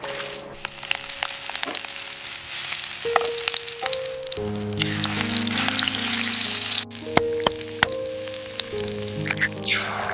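Soft background music of held, slowly changing notes over a steady crackling hiss with scattered small clicks.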